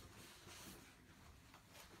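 Near silence: room tone with a few faint soft rustles and footfalls of bare feet stepping slowly on a cushion and a wooden floor.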